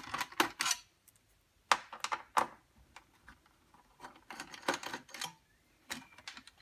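Light metallic clicks and taps in short clusters as the sheet-metal RAM shield of a Compaq SLT 386s/20 is handled and worked loose from the chassis.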